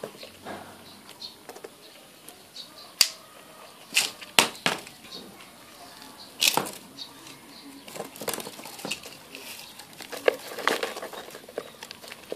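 Irregular sharp clicks and taps, several of them loud, with a light rustle between: a plastic bucket of live freshwater shrimp being handled with a blue mesh shrimp trap.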